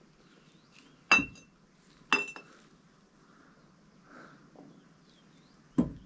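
Old glass vodka bottles clinking together as they are set down among others. Two ringing clinks come about a second apart, followed by a duller knock near the end.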